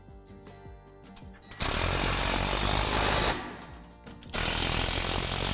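Cordless drill driving a screw into the playset's metal frame pole, running in two bursts of a second and a half or so with a short pause between.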